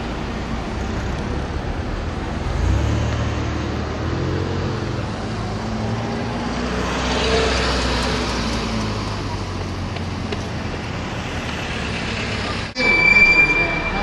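Car engine hum and road noise heard from inside a slowly moving car, with passing traffic. A sudden break near the end is followed by a brief high tone.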